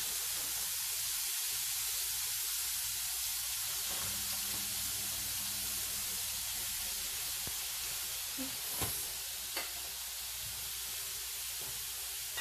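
Flour-dredged shrimp deep-frying in hot oil in a pan, a steady sizzle, with two light clicks about nine seconds in.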